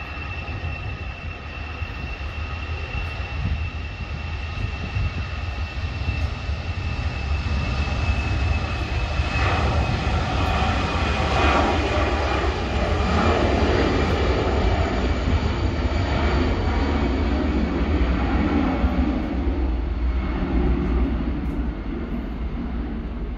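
Airbus A320-214's CFM56 turbofan engines at takeoff power as the airliner accelerates down the runway and lifts off: a steady high whine over a deep rumble. It grows louder through the middle as the aircraft passes, then eases a little near the end.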